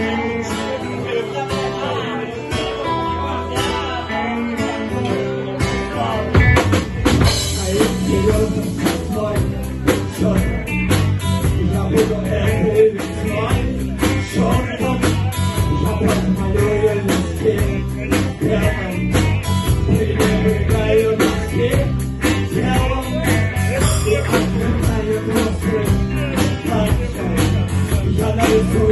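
A blues band playing a song on guitar and bass; a drum kit comes in about six seconds in and the full band keeps a steady beat.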